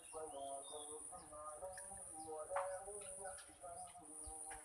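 Oriental magpie-robin song, as played to draw a silent bird into singing: a quick run of varied short whistled notes, with one sharper note about halfway through. A steady high-pitched buzz runs underneath.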